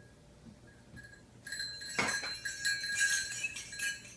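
A cluster of small bells shaken and jangling, starting about a second and a half in, with many quick clinks over ringing tones. A faint ring lingers before the shaking starts.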